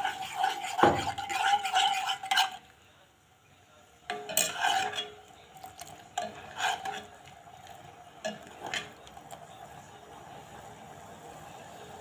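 A spoon stirring honey into a pot of simmering herbal cough decoction, clinking and ringing against the pot. The clinks come in quick clusters at the start and about four seconds in, then as a few single taps, and a faint steady hiss is left near the end.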